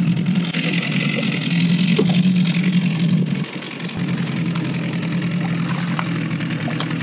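Outboard motor running steadily at trolling speed, a constant low hum, with light splashing from a hooked trout thrashing at the boat's side in the second half.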